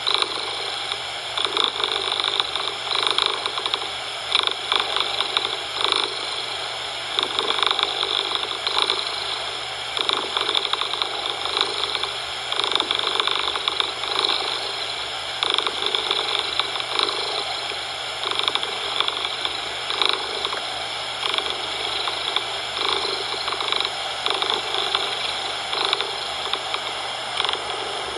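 Domestic cat purring close up, rising and falling in a steady rhythm of about one pulse a second with each breath, over a continuous steady hiss.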